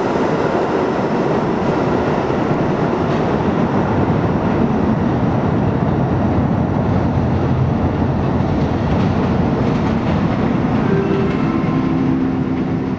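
Budd R32 subway train rumbling and clattering over the rails as it pulls away into the tunnel. A few faint steady tones come in near the end.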